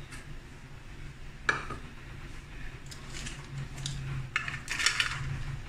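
Light clatter and clicks of plastic kitchenware being handled: one sharp click about one and a half seconds in, then a run of small clicks and rattles near the end, over a steady low hum.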